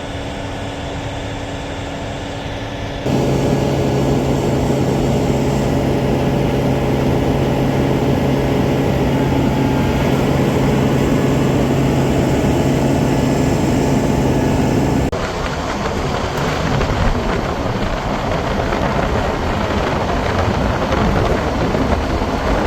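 Combine harvester running close by as it fills a grain truck, a loud steady engine hum that starts and stops abruptly. It gives way to wind and a rushing noise in the last third.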